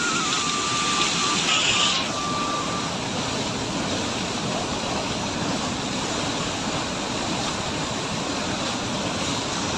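Waterfall rushing in a steady roar of water. Over the first three seconds a thin melody of single high notes sounds above it. About two seconds in, the rush turns duller all at once.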